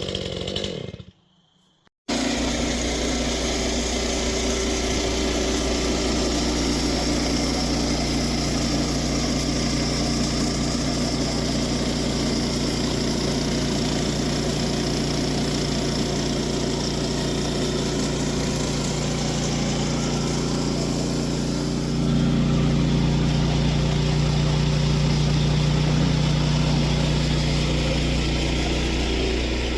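A small gasoline engine running steadily, with a brief drop-out about a second in; it gets louder about twenty-two seconds in.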